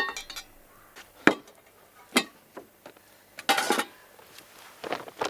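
Cutlery knocking against dishes: three sharp separate clinks, then a short scraping rasp about three and a half seconds in and another near the end.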